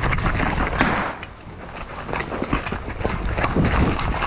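Hurried footsteps on dirt and brick rubble, with rustling of gear and brushing through foliage, briefly quieter about a second in.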